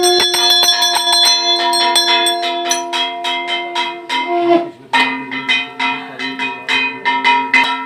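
Brass puja hand bell rung rapidly and continuously, a fast train of clapper strikes over steady ringing tones.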